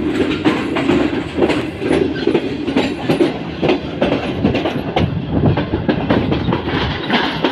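Moving passenger train heard from an open carriage door: a steady rolling rush with the wheels clattering over the track in irregular sharp clicks.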